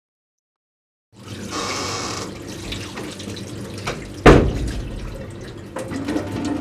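Kitchen tap running into a sink while things are handled and washed in it, with small clinks throughout, starting about a second in. One loud knock a little after four seconds in.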